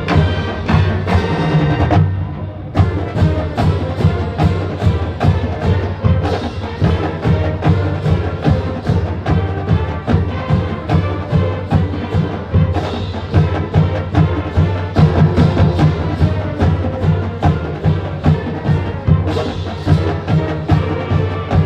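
Marching band playing, with brass and a drumline keeping a steady beat.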